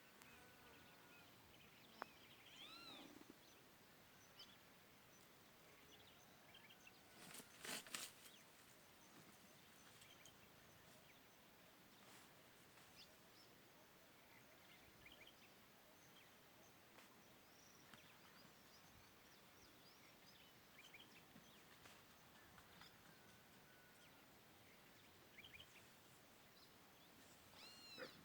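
Faint outdoor birdsong: scattered short chirps and whistled calls from several birds over a quiet rural background, with one louder, brief rattling call about a quarter of the way in.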